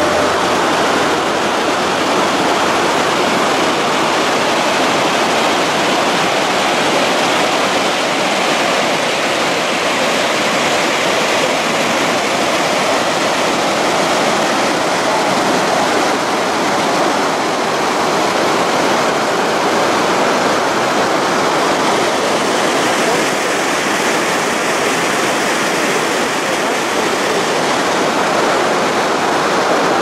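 Langfossen waterfall: a steady, loud rush of water tumbling down over rock.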